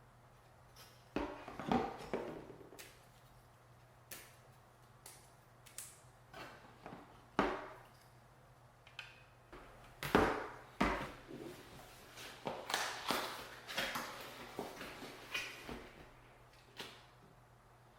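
Computer parts being handled and fitted during a mini PC assembly: irregular small clicks, knocks and brief scraping, the loudest knocks about ten seconds in.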